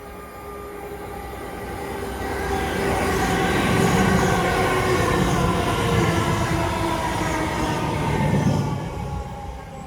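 A train passing, its rumble growing louder over the first few seconds, holding, then fading near the end, with steady whining tones over it.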